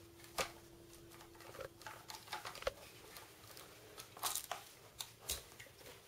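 Handling noise from a KWA M4A1 airsoft rifle being picked up and turned over to start taking it apart: scattered light clicks and knocks of its plastic and metal parts, a few at a time, with pauses between.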